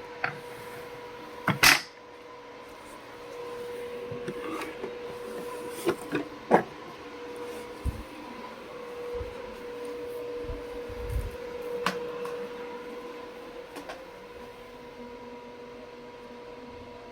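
A few sharp clicks and knocks, the loudest about one and a half seconds in, with some dull low thumps later, over a steady faint hum.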